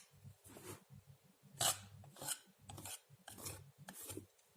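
Steel painting knife scraping and spreading acrylic paint across a board canvas in a run of short, light strokes; the loudest stroke comes about one and a half seconds in.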